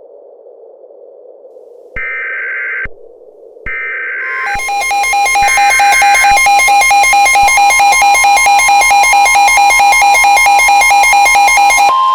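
Mock Emergency Alert System activation. A faint hiss gives way to three short screeching bursts of digital header data. A loud, rapidly pulsing electronic alert tone takes over and overlaps the last burst, then ends in a brief steady tone near the end.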